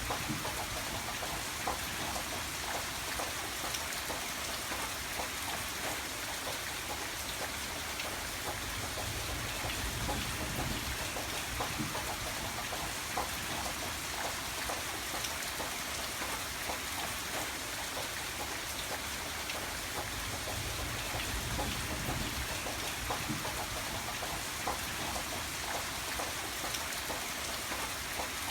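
Steady rain falling, a constant hiss with many individual drops pattering on a surface and a low rumble that swells and fades now and then.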